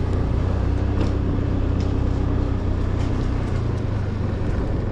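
A motor scooter's engine running steadily while riding along, with a low rumble of wind and road noise.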